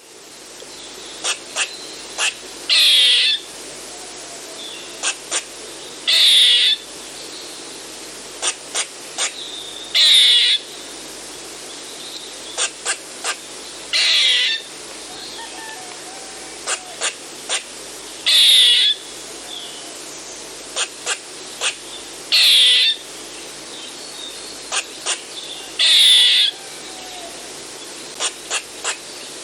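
Eastern gray squirrel giving its kuk-quaa alarm call: two to four short chucks, then a longer raspy call. The sequence repeats about every four seconds.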